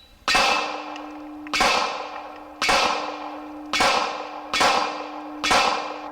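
Six pistol shots from a Glock 42 in .380 ACP, fired about a second apart. A steady ringing from the hit steel target carries on between the shots.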